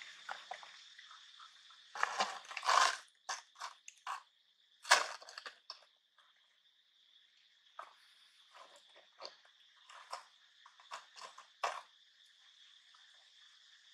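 Crinkling and crunching plastic as macaques handle and bite a plastic bottle, cup and bag, in short irregular bursts, loudest at about two and five seconds in. A steady high insect drone runs underneath.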